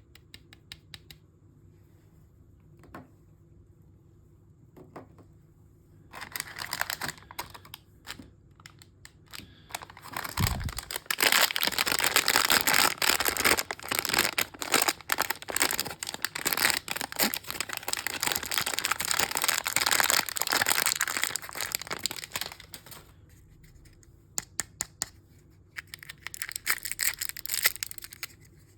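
Packaging of a mystery bag being handled, crinkled and torn open: light taps and clicks at first, then a long stretch of loud crinkling and tearing, with a soft thump about ten seconds in and more crinkling near the end.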